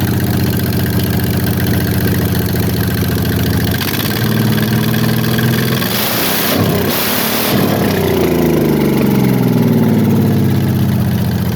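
324 Oldsmobile V8 in a 1923 Ford roadster running, with a steady idle for about four seconds. The note then shifts and sweeps up and down, with a loud rushing burst near the middle.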